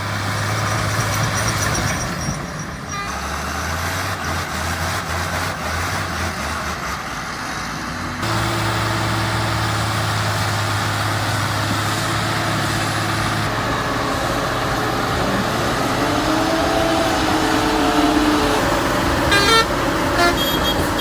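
Heavy vehicle engines running steadily, their sound changing abruptly about three and about eight seconds in. There are a few sharp clicks near the end.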